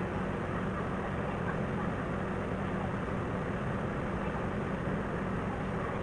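Heavy diesel engine running steadily at idle, with a constant low hum and no change in revs.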